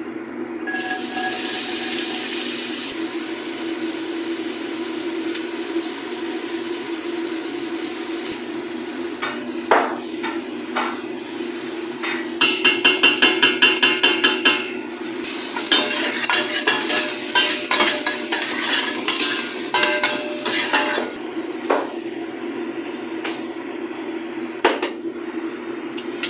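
Diced onions sizzling in hot oil in a stainless steel pot, stirred with a metal spoon that scrapes and clinks against the pot. There is a burst of sizzling near the start, a run of quick, even metal strokes about halfway through, then louder sizzling with clinks, over a steady hum.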